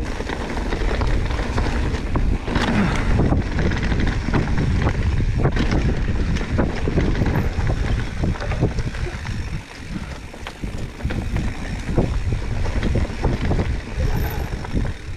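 ProPain Tyee enduro mountain bike riding down a dirt trail: tyres rolling, the frame and chain rattling over bumps with many short knocks, and wind buffeting the microphone.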